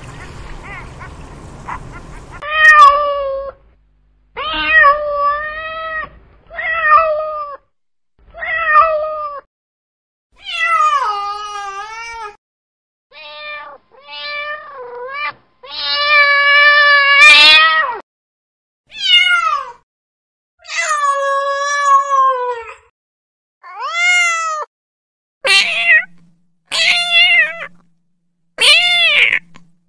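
Domestic cats meowing, more than a dozen separate meows one after another. Most are short, and one long drawn-out meow about halfway through is the loudest. The first couple of seconds hold only faint outdoor background noise.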